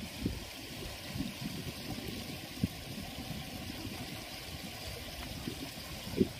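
Steady hiss of wind and flowing water, with a few soft low thumps, the loudest near the end.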